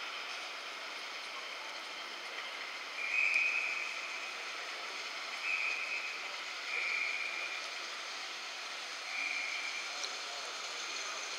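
LNER Class A4 steam locomotive and its train coming slowly into the platform: five brief high squeals from the wheels, each about half a second, over a steady rushing noise.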